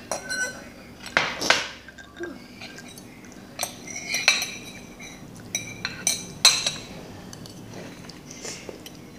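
Metal fork scraping and clinking against a ceramic plate, with several sharp clinks spread irregularly through.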